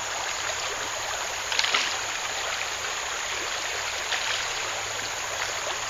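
Small creek's current running, a steady rush and babble of moving water, with a short louder burst about a second and a half in.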